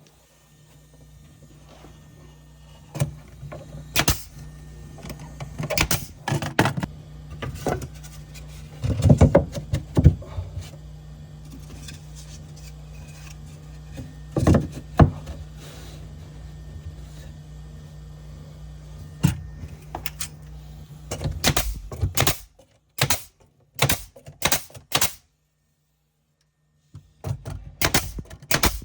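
A steady low machine hum runs for about twenty seconds with hard knocks and clattering over it, then cuts off. After it stops come several sharp clicks and knocks, a short silence, and more clicks near the end.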